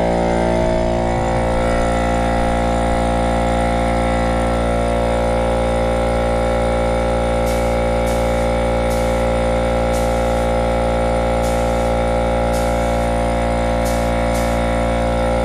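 Air compressor motor running steadily and loudly while a spray gun is used, with short hissing spray-gun bursts from about halfway on.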